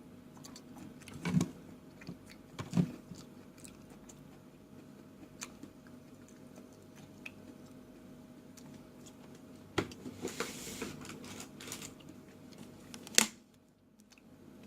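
Close-up eating sounds: a person chewing and biting food, with a few sharp clicks, the loudest near the end, and a faint steady hum underneath.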